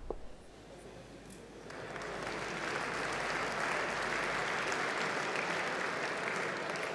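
Audience applauding, the clapping swelling about two seconds in and then holding steady.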